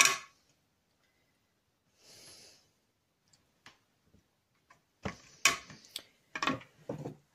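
Hard craft items being handled and set down on a cutting mat: scattered light clicks, then a run of louder clicks and knocks in the last two seconds. A soft breath about two seconds in.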